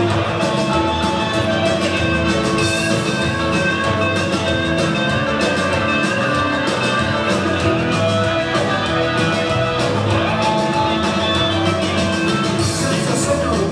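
A Czech-language rock and roll song playing, an instrumental stretch without singing, led by guitar.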